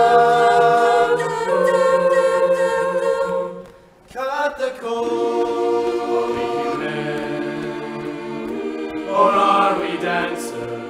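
Mixed high-school swing choir singing long held chords in close harmony, with a brief break about four seconds in before the voices come back in on a new chord.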